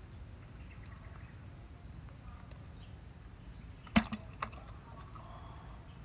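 A freshly unhooked catfish dropped into a plastic bucket of fish: a sharp knock about four seconds in and a lighter one just after, over a steady low rumble.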